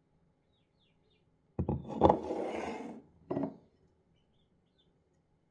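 Containers being handled on a kitchen counter: two sharp knocks close together with a second of rattling after them, then one more short knock.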